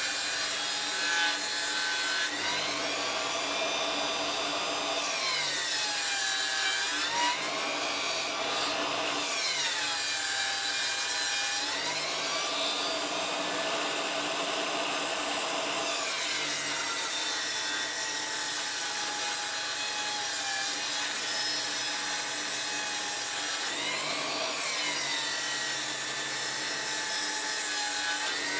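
Mac Allister circular saw, mounted under a saw table, ripping a thick bark-covered slab. The motor's whine sinks in pitch several times as the blade slows under the cutting load, then climbs back as it recovers.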